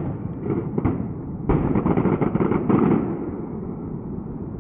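Fireworks bursting. A few scattered pops come in the first second, then a loud burst of bangs and crackling about one and a half seconds in that runs on for over a second and dies away.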